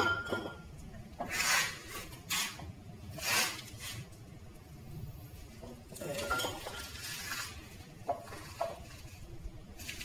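Handling sounds from a composite horn bow being worked in a wooden jig. There are three short scraping strokes in the first few seconds, a longer rubbing noise around six seconds in, and a few light clinks.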